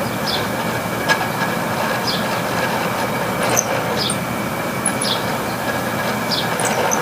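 A failing room air conditioner running: a steady mechanical noise with a constant whine, short high squeaks about once a second and a single click about a second in. It is a unit whose compressor is in overload and whose fan blades are sloshing through water.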